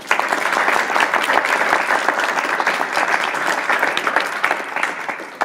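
Audience applauding, starting abruptly and beginning to die down near the end.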